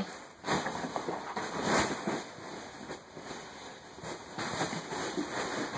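A boxer puppy digging and nosing into a fabric bean bag, the cover and its filling rustling and shifting in uneven spells.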